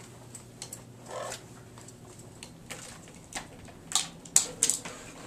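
Scattered sharp clicks and taps, the loudest few coming about four to five seconds in.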